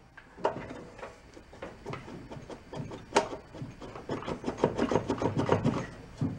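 Crankcase cover of a Kohler Command engine being worked loose by hand, scraping and grinding against the block and its gasket with many small clicks. There is a sharp knock about three seconds in, and the scraping grows busier after that.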